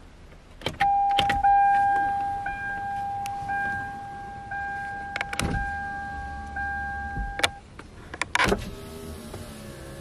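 A car's push-button ignition clicks on, and an electronic dashboard chime sounds as one steady tone, marked about once a second, for about seven seconds. Near the end a door switch clicks and the power-window motor runs with a whine.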